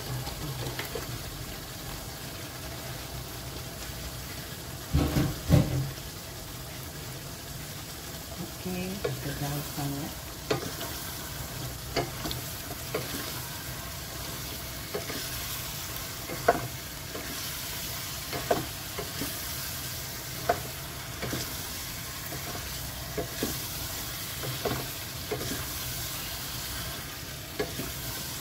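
Wooden spatula stirring fried chicken and potatoes through sizzling sambal sauce in a pot, with a steady sizzle and frequent sharp knocks of the spatula against the pot. A few heavier knocks come about five seconds in.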